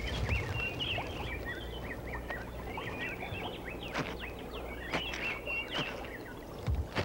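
Many short, high chirping calls over a steady low rumble, with a few sharp knocks about four and five seconds in and near the end.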